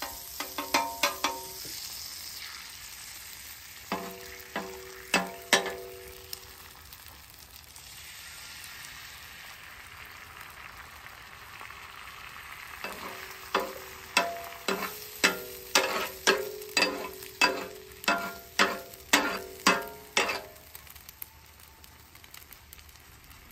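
Butter and eggs sizzling on a hot steel flat-top griddle, a steady hiss. Over it come sharp metallic clacks that ring briefly: a few at the start, a few about five seconds in, then a quick run of about a dozen, roughly two a second, from a metal spatula striking the griddle.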